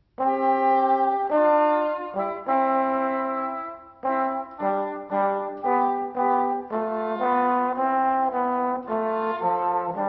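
Background music: brass instruments playing a tune in harmony, note by note, starting suddenly after silence.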